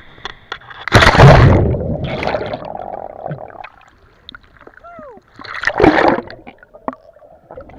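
A person jumping off a dock into the sea: a big splash about a second in, then water churning as it dies away, and another loud splash of water near six seconds.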